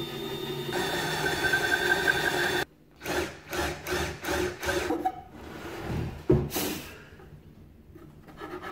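Power drill boring a 22 mm spade bit through a wooden board, running steadily with a whine for under three seconds and then stopping abruptly. Then a run of irregular scraping, rubbing strokes as wood shavings are cleared off the board.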